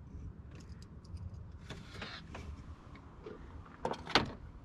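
Light metallic clicks and scrapes of snap ring pliers and hand tools being handled on an AC compressor clutch, with a louder clatter just after four seconds in, over a low steady rumble.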